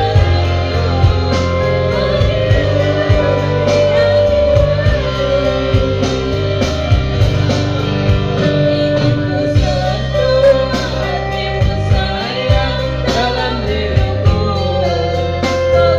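A woman singing into a microphone over a live band, with guitar, keyboard and bass, and drum hits at a steady beat.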